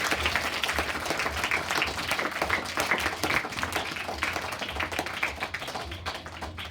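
Audience of children and teachers applauding in a hall: many hands clapping at once, dense and steady, thinning out near the end.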